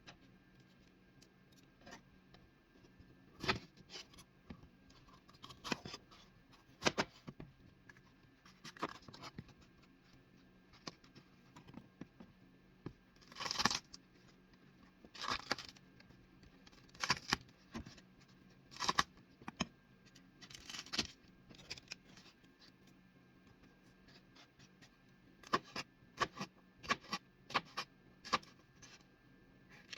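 Irregular clicks, scrapes and clatters of kitchen handling, coming in scattered bursts, over a faint steady hum.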